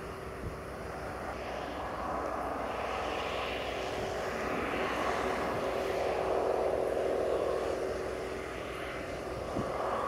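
Claas Dominator 208 Mega combine harvester running at work, a steady engine and machinery drone that swells to its loudest past the middle and then eases off as it passes.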